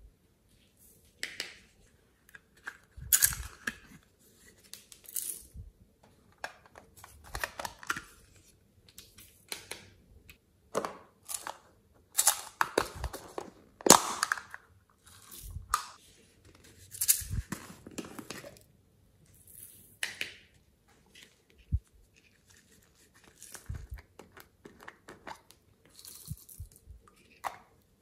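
Plastic containers, lids and bottles being handled, opened and tapped out: an irregular string of short clicks, crackles and scrapes with quiet gaps between.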